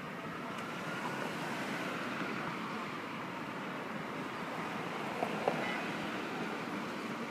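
Street traffic: a car driving past on the road over a steady hum of city noise, with two short sharp clicks a little over five seconds in.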